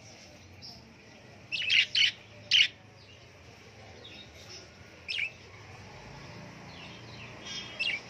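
Budgerigars chirping: short, sharp chirps, loudest in a quick cluster of four between about one and a half and three seconds in, then single chirps about five seconds in and near the end.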